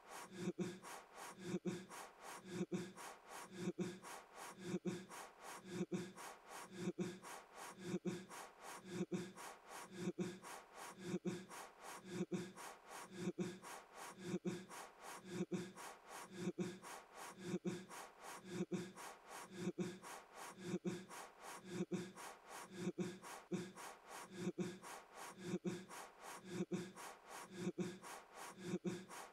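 A man blowing at a trick relighting birthday candle in short huffs of breath with a little voice in them. The huffs repeat at an even, rapid rate, over and over.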